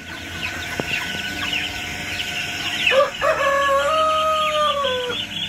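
Young chicks peeping continuously in many short high chirps. About three seconds in, a rooster crows once, a single long call of about two seconds that drops slightly at its end.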